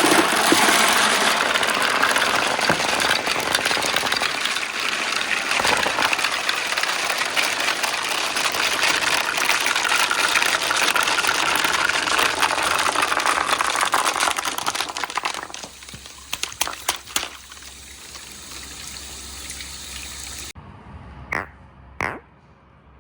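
Water gushing down a toy water marble run after its reservoirs are released, a steady rush for about fifteen seconds. It then dies away to a quieter trickle, with a few sharp knocks near the end.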